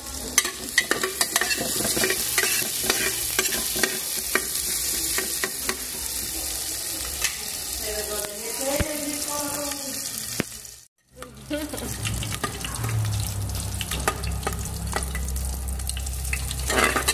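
Pork lard melting and sizzling in a pan over a wood fire, with a steady hiss and many small crackling pops. The sound cuts out completely for a moment about eleven seconds in.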